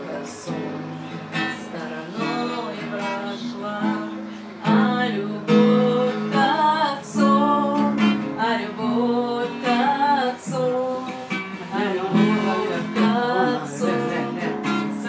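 Acoustic guitar strummed by a woman who sings along to it, a folk-style song with chords.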